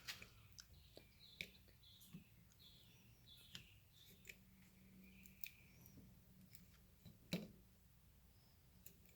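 Faint clicks and handling noise from a seat belt retractor as its reel is turned by hand to wind up the rewind spring, with one sharper click about seven seconds in.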